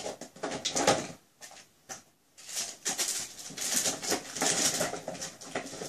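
Wrapping rustling and crinkling as hands unpack a small gift box, with a short lull a little after a second in, then continuous crinkling to the end.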